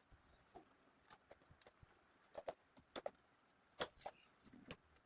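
Faint, irregular clicks and taps, a dozen or so, the loudest a little before the four-second mark.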